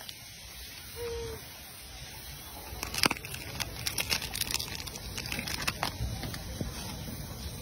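A macaque handling and tearing at a crinkly plastic snack wrapper while it eats: a run of sharp crackles and crinkles starting about three seconds in, the first one the loudest.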